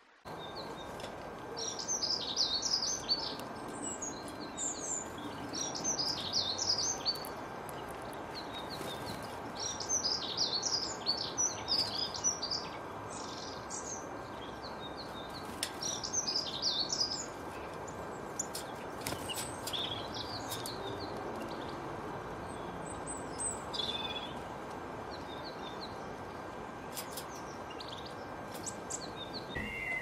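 Small birds chirping in quick clusters of high, rapid notes, busiest in the first half and sparser later, over a steady background hiss.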